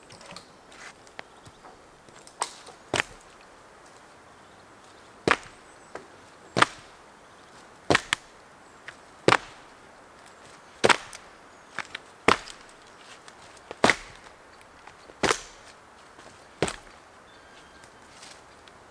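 Wood being chopped: sharp cracking blows landing roughly every second and a half, some in quick doubles.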